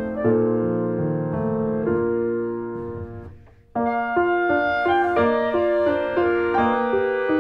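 Background piano music. It fades away about three seconds in, drops out briefly, and starts again suddenly about a second later.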